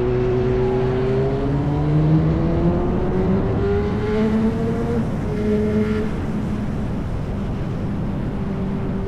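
Yamaha R1 sport bike's inline-four engine through an SC-Project exhaust, accelerating with a steadily rising engine note. About five seconds in the note breaks off for a gear change, and it then runs at a steadier pitch.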